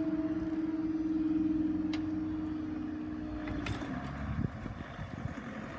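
Level crossing barriers rising after a train has passed: a steady motor hum that stops about two-thirds of the way through, followed by a few clicks and knocks as the barriers settle.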